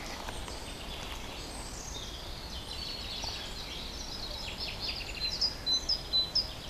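Songbirds singing: a series of short high chirps and trills that grow louder about five seconds in, over faint steady outdoor background noise.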